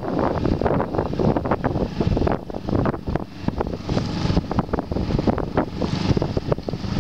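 Wind buffeting the microphone in uneven gusts over the rush of choppy water around a small yacht, easing briefly about three seconds in.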